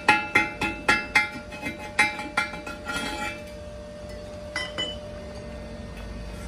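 A hammer chipping at a fresh weld on a steel truck rim, about three blows a second, each one setting the rim ringing. The blows stop about three seconds in, followed by a couple of light knocks as the rim is handled.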